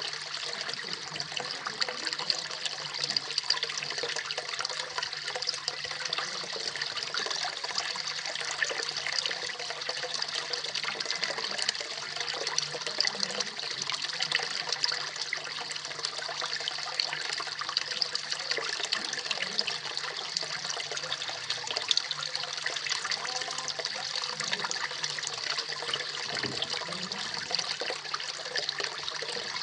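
Small pond waterfall splashing and trickling steadily into the water below, a continuous bright spatter with many small splashes.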